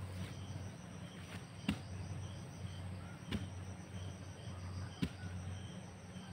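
A digging tool striking the ground in slow, even blows, three in all, about a second and a half apart, over a steady low hum.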